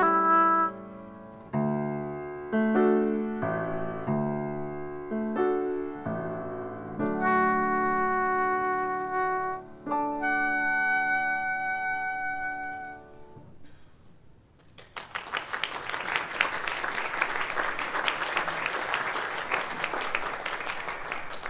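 Oboe with piano accompaniment playing the closing bars of a classical piece, ending on a held note a little past halfway through. After a brief pause, an audience applauds.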